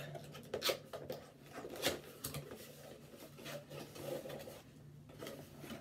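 A parcel being opened by hand: irregular light scrapes, rustles and knocks of the packaging, the loudest about two seconds in.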